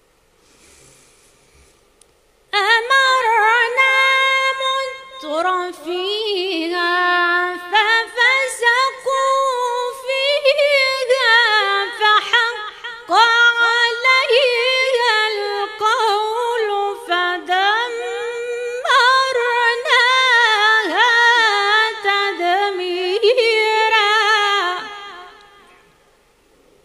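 A woman's solo melodic Quran recitation: one long chanted phrase with held notes and quick ornamented runs that rise and fall. It begins about two and a half seconds in and fades out about a second before the end.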